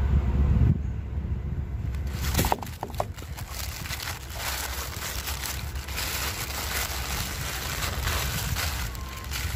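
Packaging rustling and crinkling as items are handled and unwrapped, with a low rumble of handling noise at the start and a couple of sharp clicks about two and a half seconds in.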